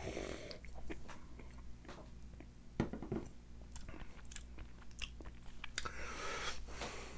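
A man sipping beer and tasting it: a short slurp, then small wet mouth clicks and lip smacks, a soft knock about three seconds in as the glass is set down, and a long breath out near the end.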